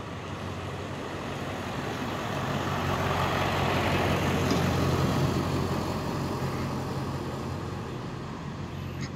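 A motor vehicle going by on the street: a low, steady engine hum under a rushing road noise that swells to a peak about four to five seconds in and then eases off.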